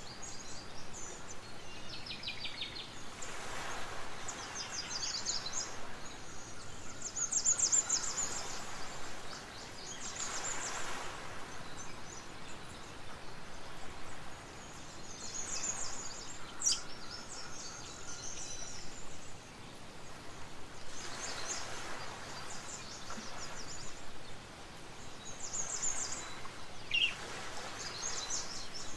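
Small birds chirping and trilling in quick repeated phrases over a steady background hiss, with a soft rushing sound swelling up every several seconds.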